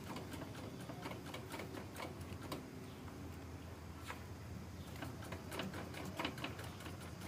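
Faint, irregular light clicks and ticks of hands working a motorcycle's rear brake pedal and a bleed tube while the rear brake is being bled.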